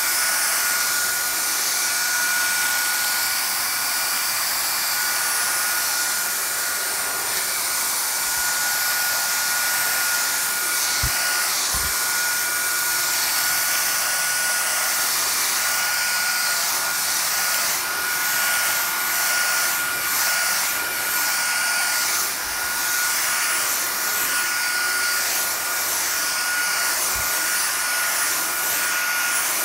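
Dyson cordless stick vacuum running steadily with its motorized brush head on a shag rug: a continuous rush of air with a steady high-pitched motor whine over it.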